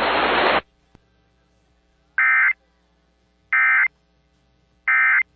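Hiss from the alert's radio audio cutting off abruptly just over half a second in, then three short, identical bursts of EAS end-of-message data tones (the SAME 'NNNN' code) about a second and a half apart, marking the end of the alert.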